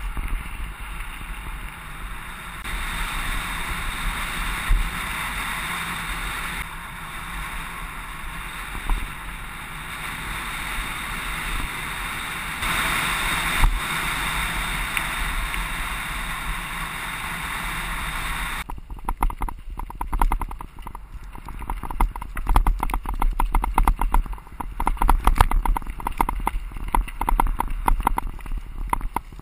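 A bicycle descending a track: a steady rush of wind and tyre noise on gravel, then, about two-thirds of the way through, a dense fast rattle as the bike runs over rougher ground.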